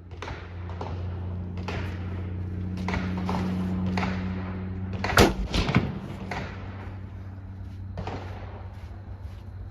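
A string of gunshots, irregularly spaced, the loudest about five seconds in, over a steady low hum.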